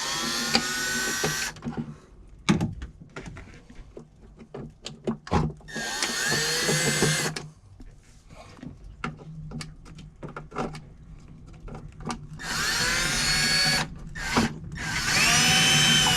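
Cordless drill-driver run in four short bursts of about a second and a half, each spinning up with a rising whine, to back out old screws. Light knocks and clicks in between.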